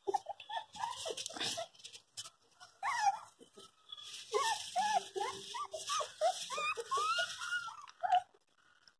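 Newborn puppies whimpering: a quick string of short, high, wavering cries, thickest in the second half and stopping near the end.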